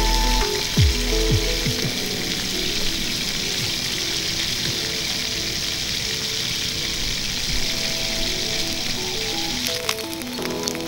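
A steady high hiss, like food frying or rain, under soft background music with a slow melody; a few deep drum hits with falling pitch near the start, and a few sharp clicks near the end.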